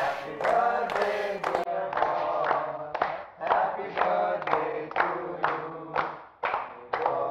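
A group of people singing a birthday song together in chorus to steady hand-clapping, about two to three claps a second, with a short break just after six seconds.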